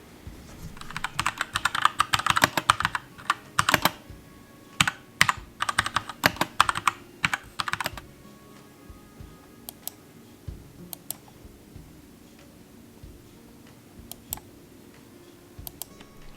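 Typing on a Keychron K2 mechanical keyboard: quick runs of clacking keystrokes for the first several seconds, then scattered single key presses.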